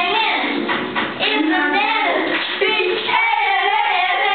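Young girls singing together into handheld microphones.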